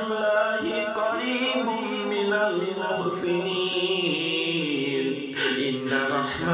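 A voice chanting a dua in long, drawn-out melodic phrases.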